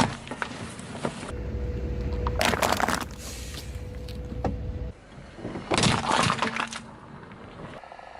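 Car tyre rolling over and crushing brittle objects: two bursts of crunching and cracking, one about two and a half seconds in and another about six seconds in, with a low car rumble between them.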